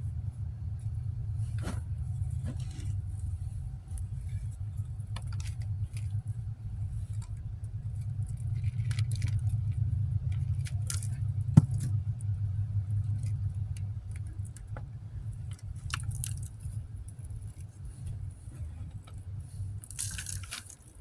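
Hand digging through garden soil and sweet potato vines: scattered scrapes, rustles and clicks, one sharp click about halfway and a longer scrape near the end, over a steady low rumble.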